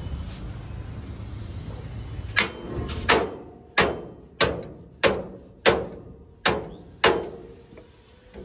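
Hammer blows on metal in a truck-body workshop: about eight strikes at a steady pace, starting a couple of seconds in. Each blow rings briefly.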